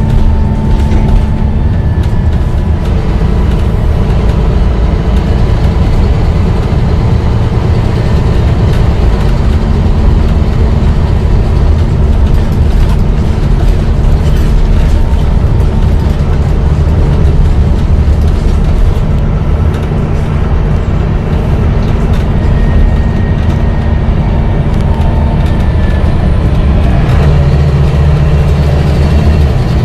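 Volvo B9TL double-decker bus's diesel engine running steadily, with a mechanical ticking. The engine note shifts about three seconds before the end.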